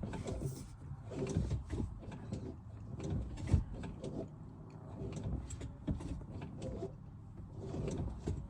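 Audi A4 B6 gear shifter and its boot being worked by hand: irregular clicks and knocks over rustling, with one sharper knock about halfway through.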